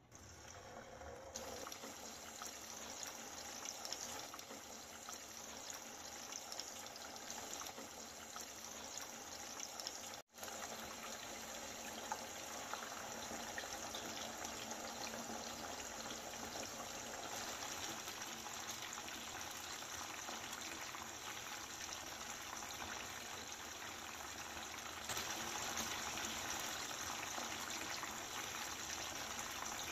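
Chicken pieces deep-frying in hot oil, a steady sizzle that swells as the first pieces go in. It cuts out for an instant about ten seconds in and turns louder near the end.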